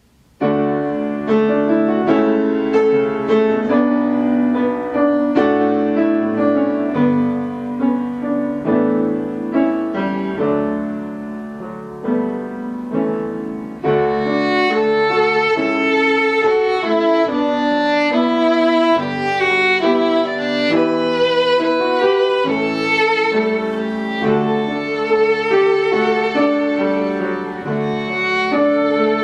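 Instrumental background music: a violin melody with wavering held notes over a keyboard accompaniment. It starts abruptly about half a second in and grows fuller and brighter about halfway through.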